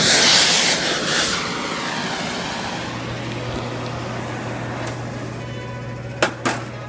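Oxy-acetylene torch flame hissing loudly, dying down after about a second and a half to a quieter hiss under a low steady hum. Two sharp clicks near the end.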